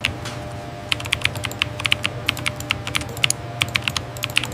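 Typing on a computer keyboard: irregular, quick key clicks over a steady low hum.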